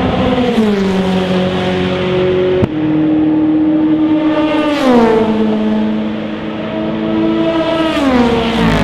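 Endurance race cars passing at speed, one after another. The engine note drops in pitch as each one goes by, three times: about half a second in, about halfway through, and near the end.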